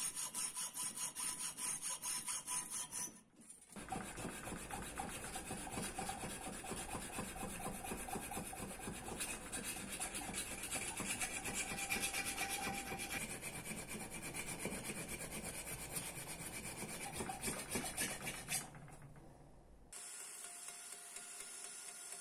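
Hand tool scraping over a metal knife part in rapid back-and-forth strokes, as in filing or hand sawing. It breaks off about three seconds in, resumes more densely, and fades away shortly before the end.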